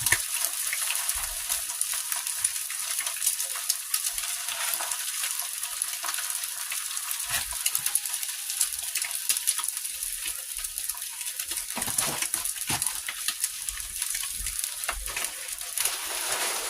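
Eggs frying in a very hot pan, with steady sizzling and crackling and a few short knocks along the way.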